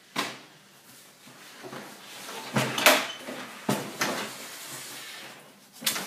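Several sharp knocks and clatter of a compact 12-volt fridge cabinet and its mounting frame being handled and shifted into place. The loudest knock comes about three seconds in, with a shuffling noise between the knocks.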